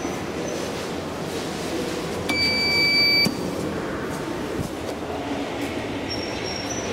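A single electronic beep from the SMW traction elevator, steady and about a second long, sounding just over two seconds in. Underneath is a steady rumble of railway station noise.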